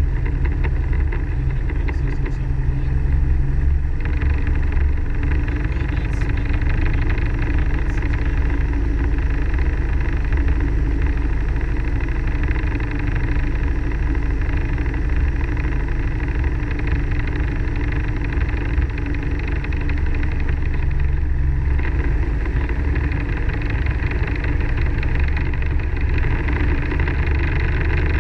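Robinson R22 helicopter's piston engine and rotor running steadily on the ground, heard from inside the cockpit.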